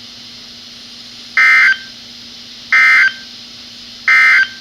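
Three short bursts of SAME digital data tones from a NOAA weather radio, each about a third of a second long and about a second and a half apart. This is the EAS end-of-message code that closes the severe thunderstorm warning.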